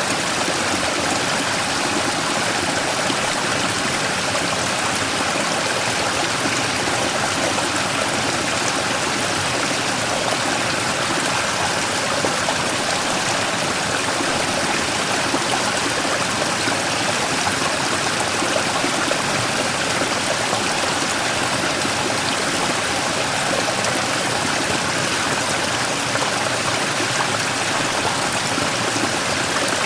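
Mountain stream running over and around a large rock, a steady rushing and splashing of water with no breaks.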